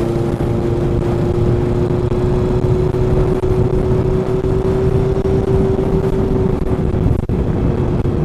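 Motorcycle engine running at a steady cruise, heard from the rider's seat over a thick rush of wind noise; its steady note creeps slightly higher, then fades out about six and a half seconds in.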